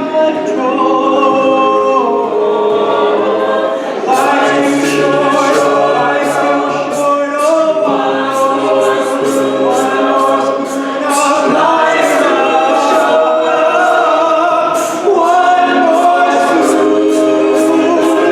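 A cappella vocal group singing sustained chords over a sung bass line. From about four seconds in, vocal percussion adds a steady beat of mouth-made hi-hat and snare sounds.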